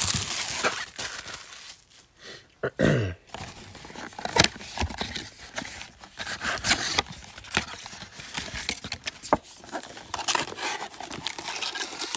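Cellophane shrink-wrap crinkling off a cardboard trading-card mega box, then the box flaps opened and a stack of foil card packs handled: a busy run of rustles, clicks and taps, with a brief falling tone about three seconds in.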